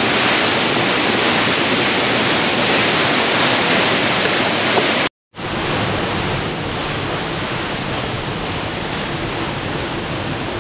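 A waterfall in full flood close by: a steady, loud rush of falling water and spray. The sound cuts out completely for a moment about five seconds in, then carries on.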